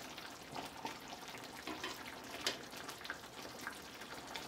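Thick tomato sauce simmering, with small wet pops and squelches as metal tongs shift chicken thighs around in the pan. One sharper click comes about two and a half seconds in.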